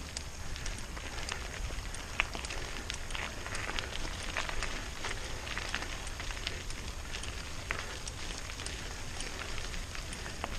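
Mountain bike's knobby tyres rolling over rough, gritty asphalt: a steady crackle with scattered sharp clicks of grit and small rattles, over a low wind rumble on the microphone.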